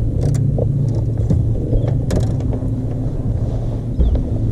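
Boat motor running steadily with a low hum, with two short knocks, one early and one about two seconds in.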